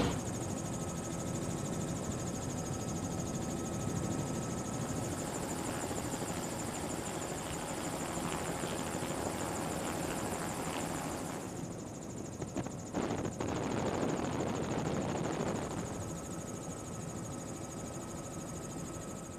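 A steady mechanical drone with a high whine, with a few short knocks about twelve and thirteen seconds in.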